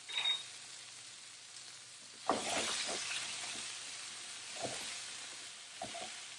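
Diced potatoes sizzling in hot oil in a frying pan, stirred and turned with a spatula from about two seconds in: scraping over the pan, then a couple of light knocks of the spatula against it. A brief clink sounds at the very start.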